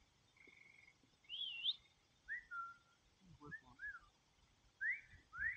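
Faint series of short whistled notes, varied in shape: a steady note, a wavering one, then several quick rising and falling glides.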